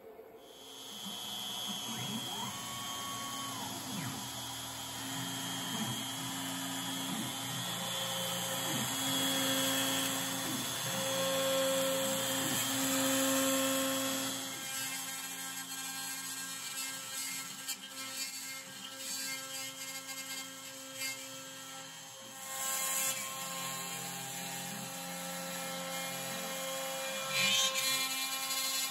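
CNC router carving a 3D relief in wood: the spindle runs steadily while the stepper motors give shifting, stepping tones as the bit moves. The sound changes about halfway through, and the bit cuts the wood with brief louder rasping near the end.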